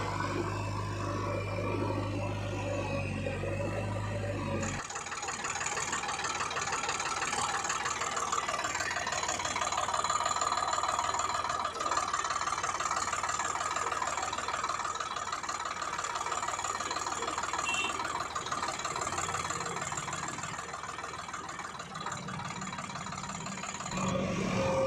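Motor-vehicle engine running, a steady low drone that switches abruptly about five seconds in to a busier, faster-chattering engine sound, with the low drone coming back near the end.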